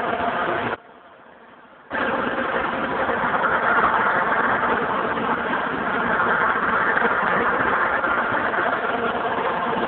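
A steady engine running, with a few steady tones in its sound. It cuts out abruptly for about a second near the start, then carries on.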